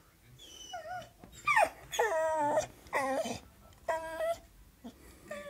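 Staffordshire bull terrier whining in over-excitement: a string of five or six high-pitched cries, several sliding down in pitch, the longest about two seconds in.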